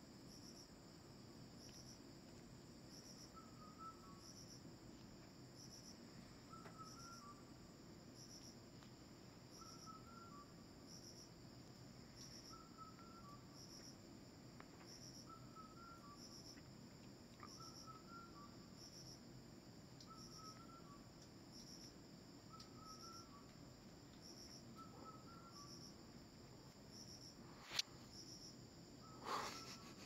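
Faint insect chirping at an even pace, about one high chirp a second, with a softer lower chirp repeating every couple of seconds over a low steady hum. A click and a short sharp knock come near the end.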